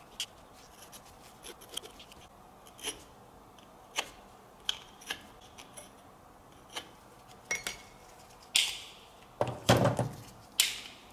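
Steel hand scriber scratching layout lines into Dykem-blued metal along a clamped 3D-printed template, with scattered small clicks and taps and a brief scrape near the end. Just before the end come louder knocks and clatter as the plastic bar clamps are handled and removed.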